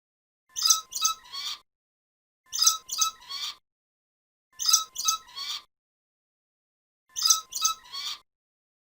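Bird call: a short three-note phrase repeated four times about two seconds apart, each repeat the same, with dead silence between.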